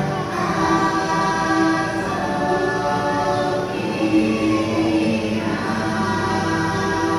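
Choir singing a slow chant with long held notes, part of a dark ride's music soundtrack.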